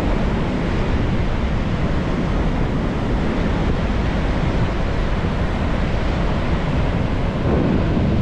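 Ocean surf rushing steadily, with wind rumbling on the microphone.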